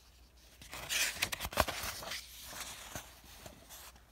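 Paper page of a picture book being turned, a rustle with a few sharp knocks from the book and phone being handled, loudest between about one and two seconds in, then dying away.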